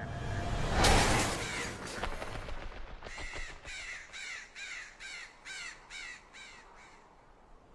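A rapid series of about ten harsh, crow-like cawing calls, two to three a second, following a loud rush of noise about a second in.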